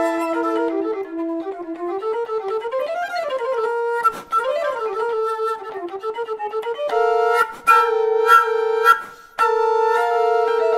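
Small portative organ (organetto) with 22 copper, alpaca and tin pipes playing a melody. It starts with held notes, moves into quick runs up and down, then plays rapidly repeated notes. The sound breaks off briefly about nine seconds in.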